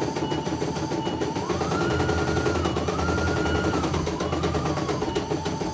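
CNY E900 computerized embroidery machine stitching: a fast, even needle clatter with a motor whine that rises and falls in pitch every second or so.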